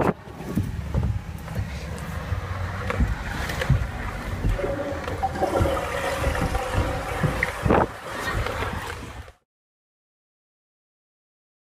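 Rumbling, rubbing noise of a rider going down an enclosed tube slide, heard from a camera carried along, with scattered knocks against the tube. It cuts off abruptly to silence about nine seconds in.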